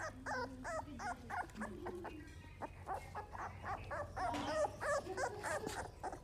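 American Bully puppies yipping and whining in quick runs of short high-pitched cries, about five a second, over a low steady hum.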